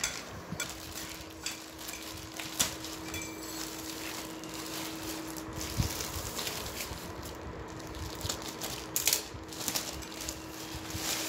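Clear plastic wrapping crinkling and rustling as it is peeled open off a folded fabric rack cover, with scattered small clicks and taps. A faint steady hum runs underneath.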